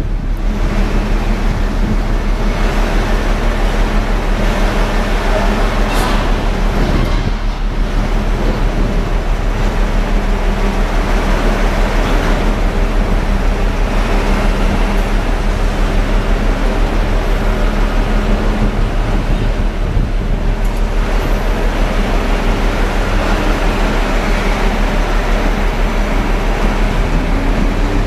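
Heavy surf breaking in a steady, loud roar, with a constant low hum underneath.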